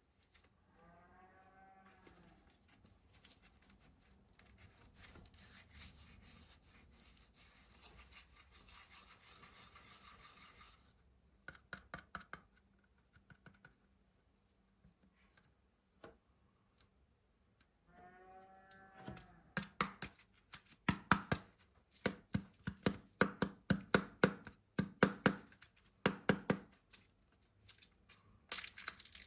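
Packaging of air dry clay handled and opened by hand: soft rubbing and scraping, two brief squeaks, then a loud run of sharp crinkling, snipping and tearing sounds in the last third.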